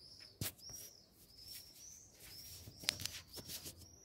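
A small bird chirping over and over, faint short high chirps about twice a second, with a couple of sharp clicks, one about half a second in and one near three seconds.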